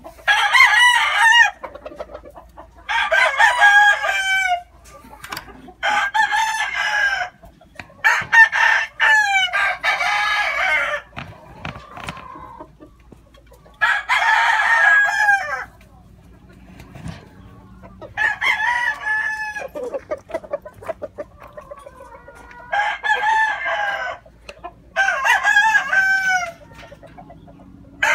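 Gamefowl rooster crowing over and over: about nine crows, each a second or so long, with short pauses between them.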